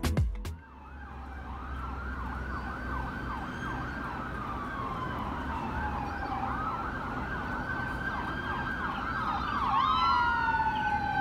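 Ambulance siren passing on the street: fast yelping sweeps for several seconds, then a slower wail rising and falling, joined near the end by a second siren tone, growing a little louder as it approaches, over low traffic noise.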